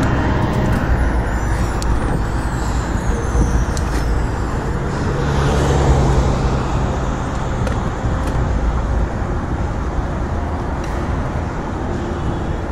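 Road traffic with cars passing, over a heavy, uneven low rumble.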